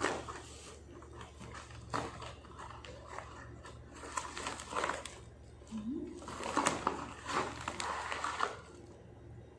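Packaging being handled and opened by hand: irregular crinkling and rustling bursts with a sharp click about two seconds in, over a low steady hum.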